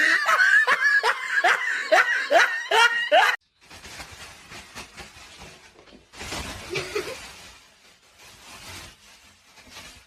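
A person laughing in a run of short, loud rising bursts that stop abruptly after about three and a half seconds, followed by quieter background noise.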